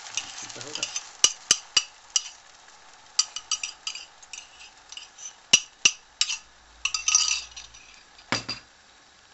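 A metal spoon clinking and scraping against a ceramic cup in many quick light taps as beaten egg is scraped out of it into a frying pan, with a duller knock near the end.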